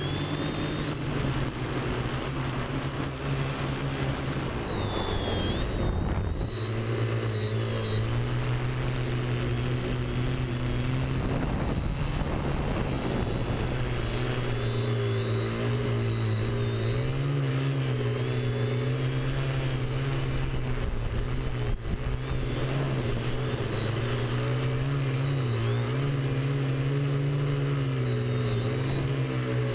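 TBS Discovery Pro quadcopter's electric motors and propellers in flight, heard from the camera on board: a steady buzzing hum whose pitch rises and falls as the throttle changes, with a faint high whine above it.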